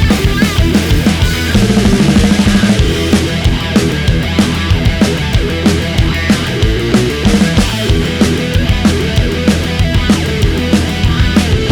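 Loud rock music with a heavy drum beat and bass.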